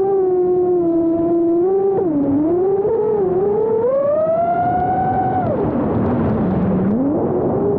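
Brushless motors of a 5-inch FPV freestyle quadcopter on a 6S battery whining, the pitch sliding up and down with the throttle. Past the middle the pitch rises, then drops sharply as the throttle is cut, and climbs back near the end.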